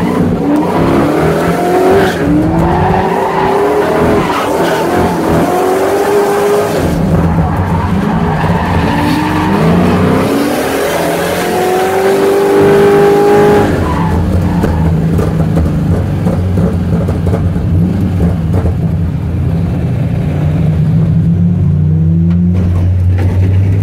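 Drift-car tyres squealing in long, wavering glides over hard-revving engines, heard from inside the chasing car's cabin. About fourteen seconds in the squeal stops, leaving a steadier engine drone as the cars drive on more slowly.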